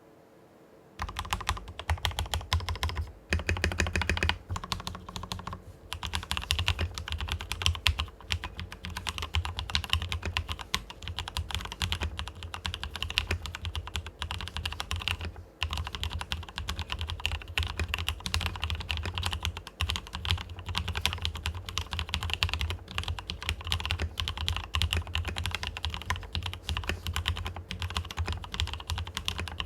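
Continuous fast typing on a tenkeyless mechanical keyboard with fully lubed Cherry MX Red linear switches: dense, rapid keystrokes with a low thud under each. The typing starts about a second in and breaks off in a few short pauses.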